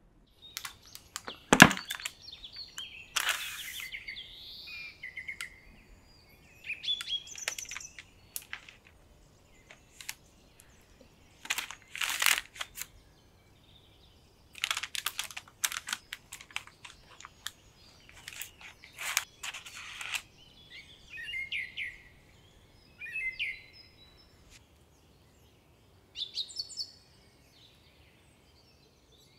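Short bird-like chirps mixed with sharp clicks and crackles at irregular intervals, the loudest a single crack about a second and a half in.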